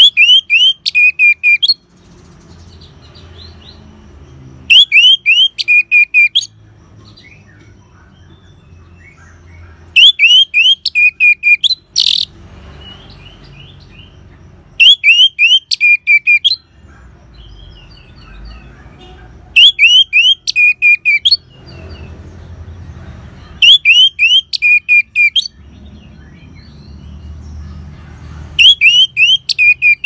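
Orange-headed thrush singing one short, loud phrase over and over, once every four to five seconds. Each phrase is a quick run of high, sharp notes.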